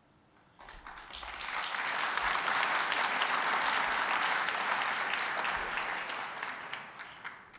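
Large audience applauding: the clapping starts about half a second in, swells to its fullest around the middle, then dies away near the end.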